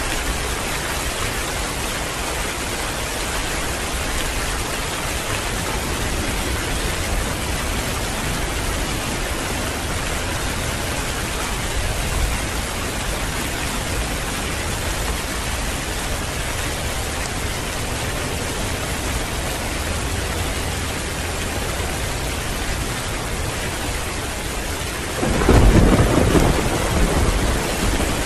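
Heavy rain pouring steadily. Near the end, a loud peal of thunder breaks in and rumbles on.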